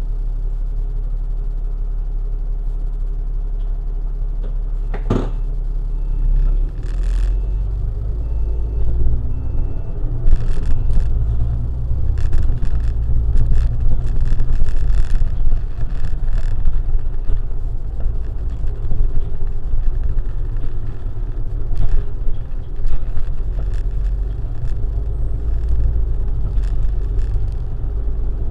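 Vehicle driving on a city road and tunnel approach: a steady low rumble of engine and tyres, growing louder and rougher from about ten seconds in. A short sharp sound comes about five seconds in.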